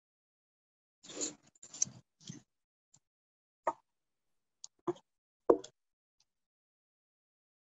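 Brief rustling and scuffling, then three short sharp knocks a second or so apart, coming through a video call's audio.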